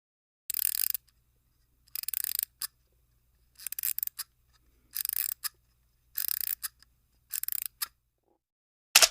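A sound-effect clip of six short, scratchy strokes about a second apart, then a single sharp click near the end.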